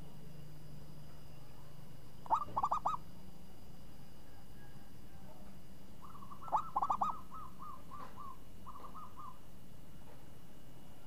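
Zebra dove (perkutut) cooing: a short burst of quick, rolling coo notes about two seconds in, and another a little past halfway, the second trailing off into a run of softer, repeated notes.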